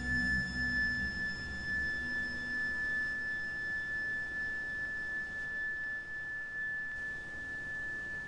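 A single steady high-pitched electronic tone, held without a break, over a low rumble that dies down within the first second or two.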